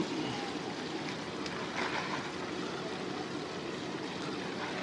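Steady rush of fountain jets splashing into an ornamental pond: an even water noise with no distinct events.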